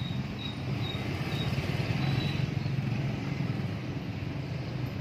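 Motorcycle engine running steadily at low riding speed, heard from on the bike, with a few short high chirps in the first half.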